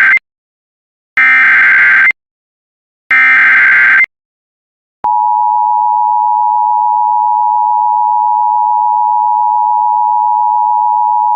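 Emergency Alert System SAME header: bursts of harsh digital warbling about a second long, the first ending just as the sound begins and two more following at about one-second gaps. It carries the coded alert data. About five seconds in, the steady EAS two-tone attention signal starts and holds, announcing that an emergency alert message follows.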